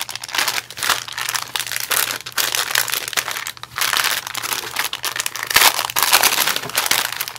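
Clear plastic bag of lace trims crinkling unevenly as hands turn it over and pull it open.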